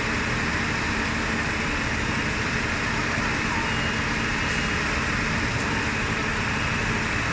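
Fire engine running steadily at a building fire: a constant low hum under an even rushing noise.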